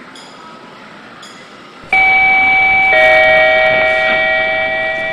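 Schindler 5400AP elevator's hall arrival chime: two electronic tones, a higher one about two seconds in, then a lower one a second later, both ringing on and slowly fading.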